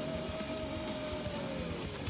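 Background music, with a steady high tone that falls in pitch near the end.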